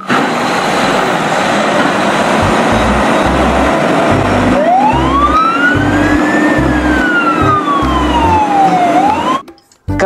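A vehicle sound effect: a steady rushing noise with low rumbles. About halfway in, a siren wail joins it, rising once and falling slowly, then starting to rise again before everything cuts off suddenly near the end.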